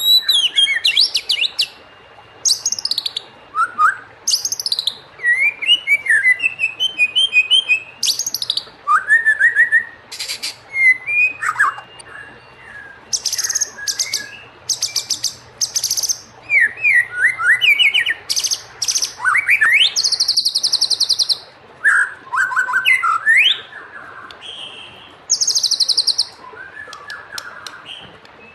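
White-rumped shama (murai batu) singing a long, varied song: sliding whistled notes rising and falling, mixed with rapid high trills and buzzy rattles, delivered in short phrases with brief pauses between them.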